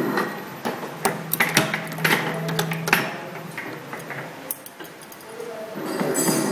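CNC punching and forming machine for clip making running, its punches and forming slides striking the metal strip in a quick, irregular series of sharp metallic clacks and clinks over a low machine hum.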